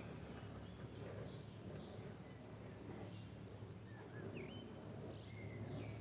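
Songbirds chirping in the morning, short downward-sliding calls scattered through, over a faint steady low rumble.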